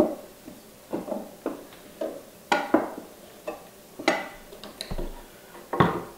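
SnapStone porcelain floor tile in its plastic interlocking frame being lifted out of the floor and handled: about nine irregular hard clacks and knocks as it strikes and scrapes against the neighbouring tiles.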